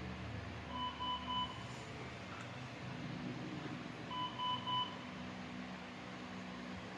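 Electronic alarm from bedside medical equipment beeping in two bursts of three short beeps, about three and a half seconds apart, over a low steady hum.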